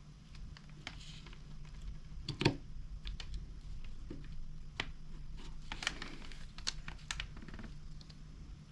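Irregular small clicks and taps of a trimmer carburetor and its gasket being handled and lined up on the engine, with one louder knock about two and a half seconds in, over a low steady hum.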